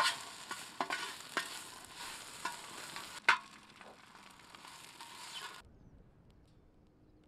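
Pieces of duck sizzling in a wide steel pan, stirred with a slotted metal spatula that scrapes and clicks against the pan several times, loudest a little past three seconds in. The sizzle cuts off suddenly about five and a half seconds in, leaving only a faint low rumble.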